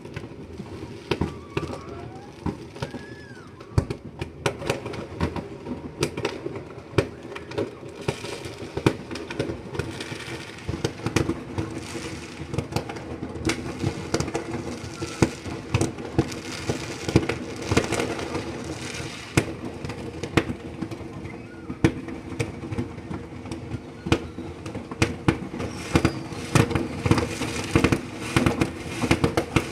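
Fireworks going off in a dense, continuous barrage of sharp bangs and crackles, many per second and overlapping, with no pause.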